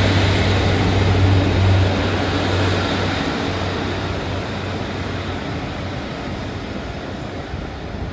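Class 150 Sprinter diesel multiple unit pulling away from the platform, its diesel engine drone and wheel rumble growing fainter as it moves off. The low engine hum drops out about three seconds in.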